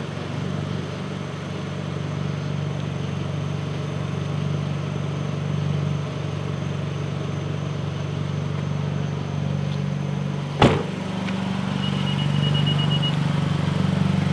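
10th-generation Honda Civic's engine running at a steady drone while driving. A single sharp thump comes about ten and a half seconds in, followed shortly by a quick string of high beeps lasting about a second.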